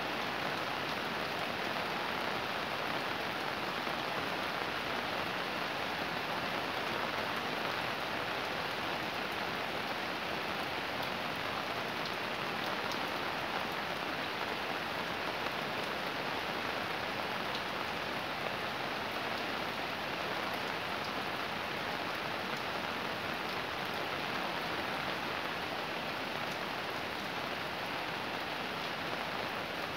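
Fairly heavy rain falling steadily, an even hiss of drops on the street and rooftops with no let-up.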